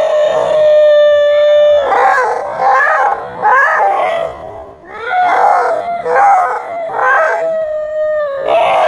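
A puppy howling and crying: a long, level howl for about the first two seconds, then broken, wavering yelping cries, then another held howl near the end. It is the frightened cry of a cornered puppy.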